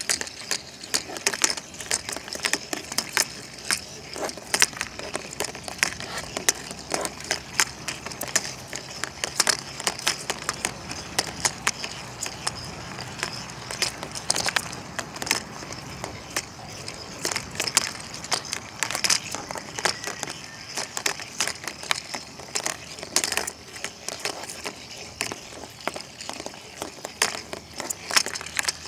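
Two motorized toy weasel balls rolling and tumbling in a plastic laundry basket: irregular plastic clattering and knocking as the balls bump into each other and the basket walls, over a faint steady high whine from their motors.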